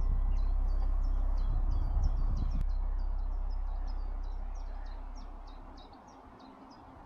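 A small bird calling a rapid run of short, high, falling chirps, several a second, over a low rumble that fades away over the first six seconds.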